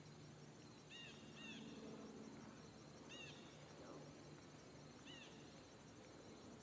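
Near silence: faint outdoor background noise, with a bird giving four short, faint chirps spread across a few seconds.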